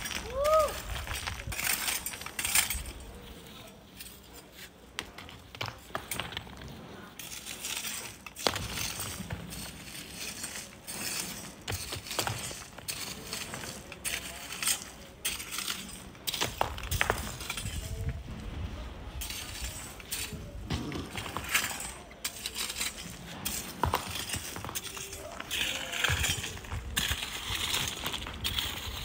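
Irregular clinks and knocks of rock and stone struck and shifted while sand is dug by hand from between large rocks. A short tone that rises and falls is heard about half a second in.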